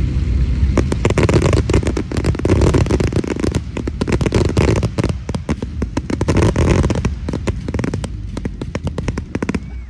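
Aerial fireworks going off in a dense, rapid barrage of bangs and crackling over a low rumble. It starts about a second in and thins out near the end.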